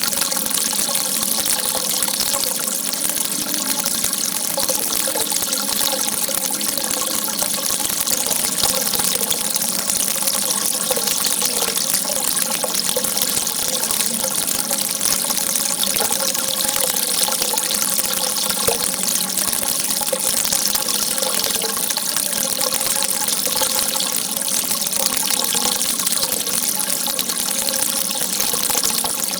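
Water shooting out in a steady, unbroken stream, a constant rush with faint ringing tones beneath it.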